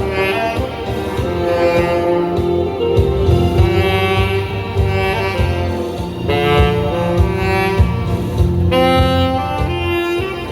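Saxophone playing a melody of held notes over a backing track with a bass line.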